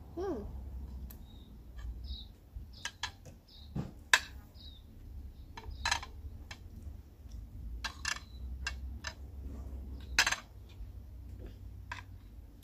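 Cutlery clinking and scraping on a plate while someone eats, a few sharp clinks spread through, the loudest about four and ten seconds in.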